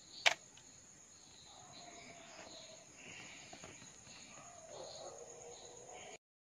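A Canon DSLR's shutter and mirror clack once as a 20-second long exposure begins, over faint crickets chirping. The sound cuts off suddenly near the end.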